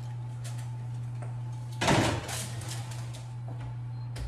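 A foil-covered roasting pan slid onto a wall-oven rack: one short metal scrape and clatter about two seconds in, over a steady low hum.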